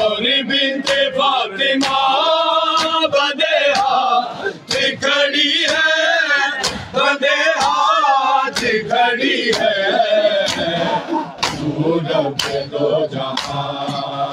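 A chorus of men chanting a noha, a Shia lament, in unison, keeping time with sharp hand-on-chest beats of matam about once a second.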